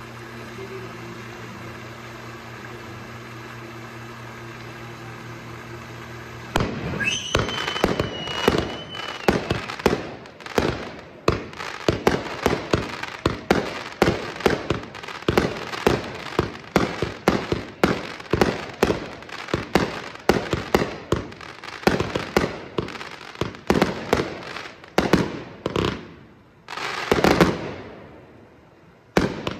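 Fireworks display: after a few seconds of steady low hum, a rapid volley of aerial firework shots and bursts begins about six seconds in, about two to three bangs a second. A whistle runs for a couple of seconds at the start of the volley, and a longer rushing burst comes near the end.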